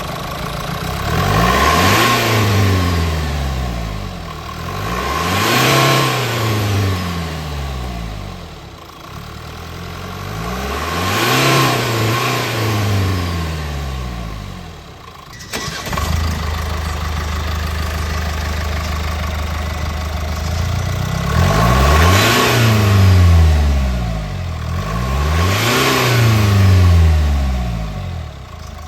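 Mercedes Sprinter 2.0L four-cylinder diesel fitted with an S&B aftermarket air intake, revved repeatedly. The pitch rises and falls about five times, and the intake and turbo note comes up with each rev. Partway through it drops out briefly, then idles steadily for a few seconds before the revving resumes.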